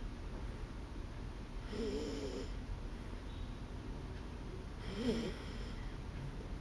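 A sleeping dog snoring: two short snores about three seconds apart, each under a second long with a wavering pitch.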